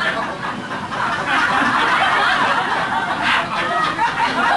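Audience laughing.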